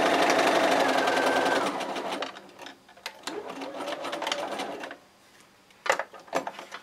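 Bernina sewing machine stitching a quarter-inch seam at speed, slowing and stopping about two seconds in. Then comes quiet handling of the fabric, with two sharp clicks near the end.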